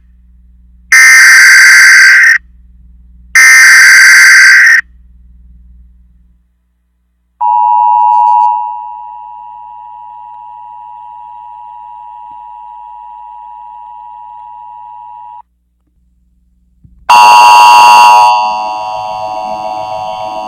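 Three bursts of Emergency Alert System digital data tones, each a harsh warbling screech lasting over a second, followed by the steady two-tone EAS attention signal held about eight seconds, loud at first and then softer. After a short silence a loud electronic chord sounds near the end and carries on more quietly.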